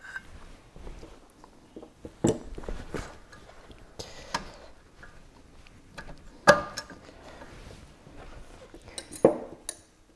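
Hand tools and metal parts clinking and knocking at a sterndrive's shift linkage as the shift cable is being disconnected: a handful of separate sharp clicks, the loudest about six and a half seconds in.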